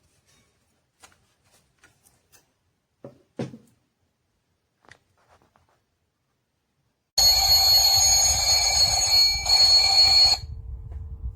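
Digital alarm clock's alarm going off: a loud, steady, high-pitched ringing that starts suddenly about seven seconds in and stops about three seconds later, dropping to a faint low hum. Before it there are only faint scattered clicks.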